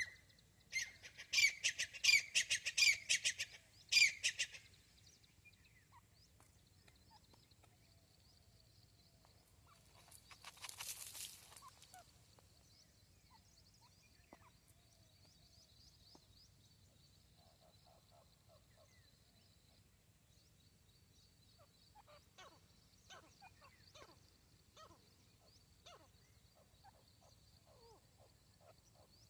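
A francolin (teetar) calling: a loud burst of rapid, harsh, repeated notes lasting about four seconds, starting just after the start. About ten seconds in there is a short hiss of noise, and faint scattered chirps come later.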